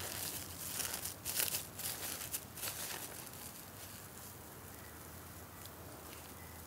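Plastic wrapping around a plant's root ball crinkling and rustling as it is pulled open by hand, in quick bursts for about the first three seconds, then only faint handling noises.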